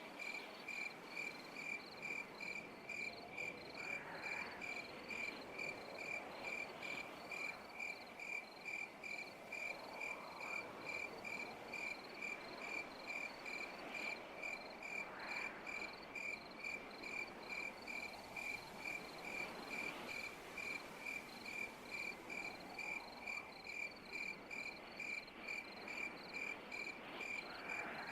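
A cricket chirping in an even, unbroken rhythm, about two high chirps a second, over a faint hiss with a few soft swells.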